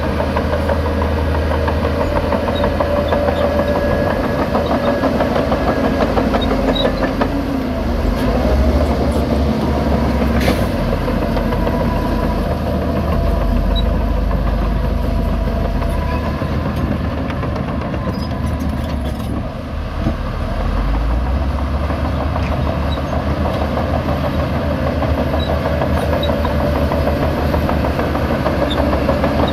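Heavy diesel engines of a Shantui DH17 C2 bulldozer and Shacman 10-wheel dump trucks running steadily as they work. A single brief knock comes about ten seconds in.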